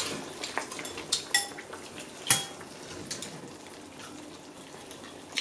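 Chopsticks clinking against a ceramic bowl and the steel hot-pot pan: a few separate light taps, two of them with a brief ringing tone.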